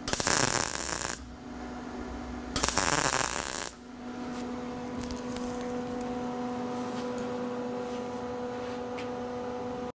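MIG welder arc crackling in two bursts of about a second each as a bead is pushed on thin steel plate, then a steady hum with a few faint ticks once the arc is off.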